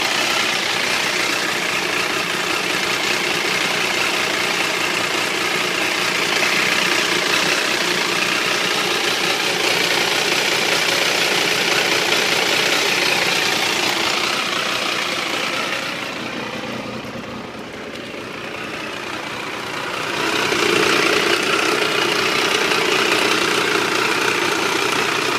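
Triumph 955i inline three-cylinder engine idling with a strange mechanical noise that the owner cannot place, suspecting the clutch or the valves; it is worse when the engine is hot. The sound grows quieter and duller for a few seconds about two-thirds through, then returns with a stronger mid-pitched note.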